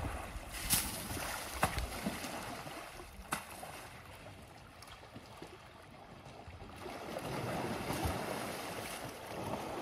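Water splashing and sloshing as an African elephant plays in a muddy waterhole, spraying water with its trunk. A few sharp splashes come in the first seconds, and the splashing grows louder again over the last few seconds.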